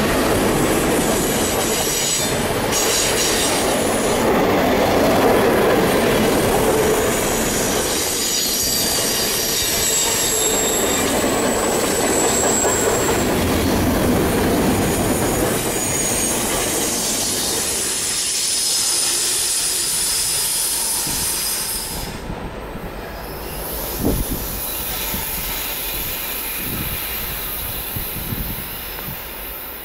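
Long CN freight train rolling past, its steel wheels squealing in thin high tones over the steady rumble of the cars. From about two-thirds of the way in the squeal fades and the rumble eases into separate wheel clicks over the rail joints, with one sharper knock.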